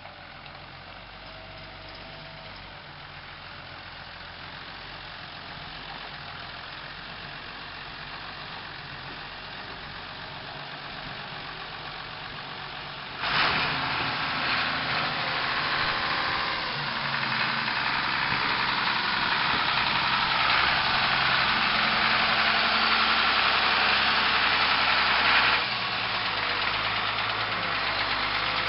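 Ford six-cylinder engine of a Moxy articulated dump truck running, growing gradually louder. About halfway through it suddenly gets much louder and stays loud, then drops back a little a few seconds before the end.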